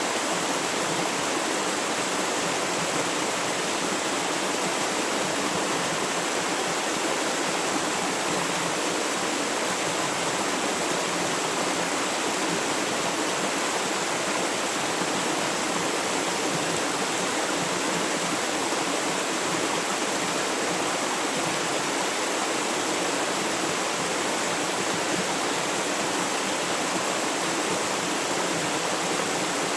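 River water flowing, a steady rushing with no pauses or changes.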